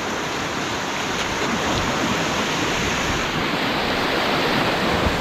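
Whitewater rapids rushing and waves crashing around a canoe running through them: a steady rush of water that slowly grows louder.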